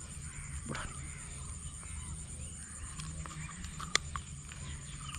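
Birds calling faintly in the background, with a single sharp click about four seconds in from the pliers being used to unhook a snakehead from a frog lure.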